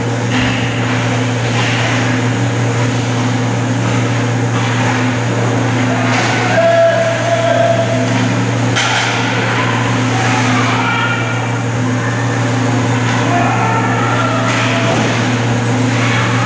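Ice hockey game sounds in a rink: a steady low hum under scattered shouts from players and spectators, the strongest about seven seconds in, with a few sharp knocks of sticks and puck.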